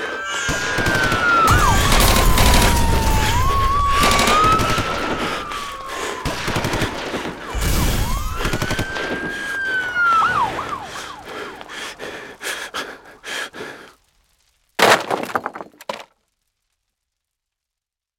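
Emergency vehicle siren wailing, its pitch sweeping up and down, with two loud rumbling surges of noise over it. It fades out, one short loud burst follows, and then the sound cuts to silence.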